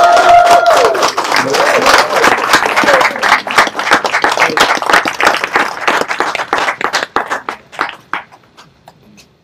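Crowd of guests applauding and cheering, with a few high whoops in the first second or so; the clapping thins out and dies away near the end.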